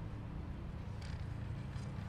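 Steady low background hum with faint paper rustling about a second in and again near the end, as loose sheets are handled at a lectern microphone.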